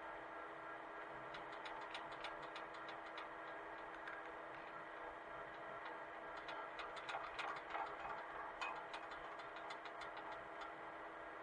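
Hitachi mini excavator's engine running steadily and faintly, with two spells of rapid light ticking and clattering, one starting about a second in and a longer one in the second half.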